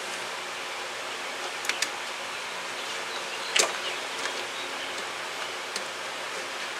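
Steady background hiss with a few sharp clicks and taps of small parts being handled, the loudest about halfway through, as the hood latch cable is routed and clipped in place.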